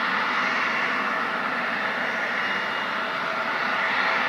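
Jet airliner engines running steadily: an even rushing noise with a faint whine.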